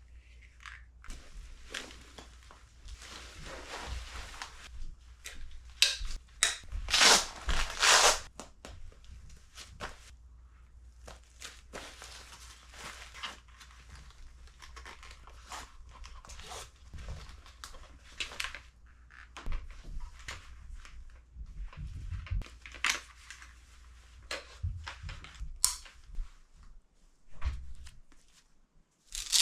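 Gear being handled and put on: fabric rustling and scraping, with tearing noises and scattered clicks and knocks, loudest about six to eight seconds in.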